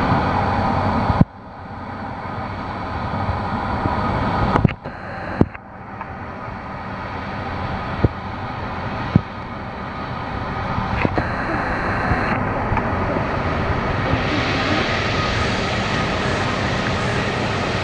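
Airbus A330-300's Rolls-Royce Trent 700 jet engines running on the runway at the start of the takeoff, a steady rumble that builds and grows louder and hissier over the last few seconds. A few sharp clicks cut through it.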